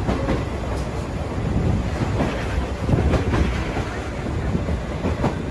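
Sagano scenic trolley train running along the line: a steady rumble of the carriage and its wheels on the rails, with scattered clicks. Wind buffets the microphone.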